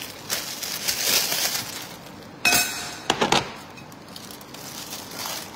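Thin plastic bag crinkling and rustling as it is opened and handled, with a few sharp clinks about halfway through.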